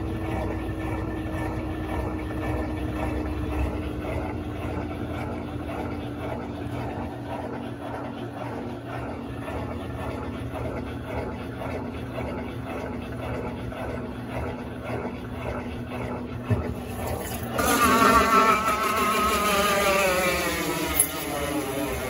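Electrolux LAC17 washing machine in the final seconds of its spin cycle: a steady motor hum slowly sinking in pitch as the drum spins. About 17 seconds in, a louder whine sets in and falls steadily in pitch as the drum winds down to a stop.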